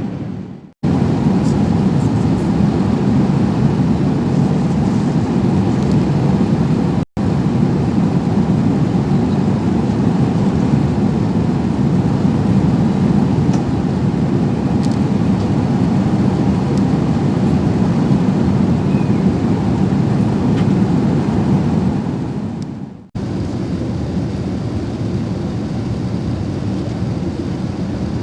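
Airbus A380 cabin noise: a steady, low rumble of engines and airflow inside the passenger cabin. It breaks off sharply three times.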